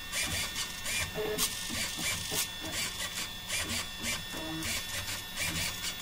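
Powered-on Arduino wire cutting and stripping machine with stepper motors and servos: a steady high whine with many irregular small mechanical clicks.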